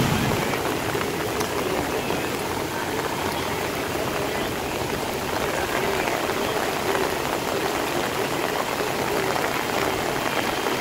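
Floodwater rushing steadily across a roadway, a continuous even wash of water noise.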